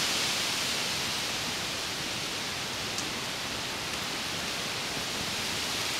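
Steady rain falling on trees and foliage during a tropical storm: an even, unbroken hiss.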